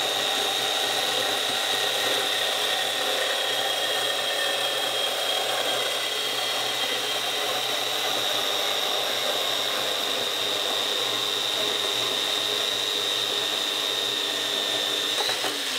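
Parkside portable metal band saw cutting through a fairly thick stainless steel tube held in its vise. It runs with a steady high whine over grinding noise. The saw is labouring somewhat in the stainless, and the pitch lifts slightly near the end.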